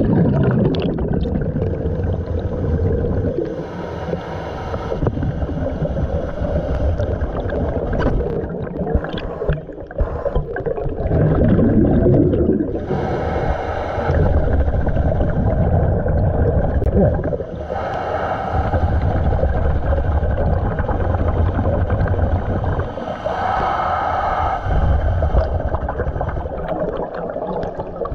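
Scuba diver breathing through a regulator underwater: a short hissing inhale every few seconds, each followed by a longer rumble of exhaled bubbles, over several breaths.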